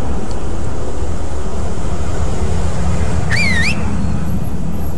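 Steady, loud outdoor background noise with a deep rumble, and a single short bird chirp that dips and then rises in pitch about three and a half seconds in.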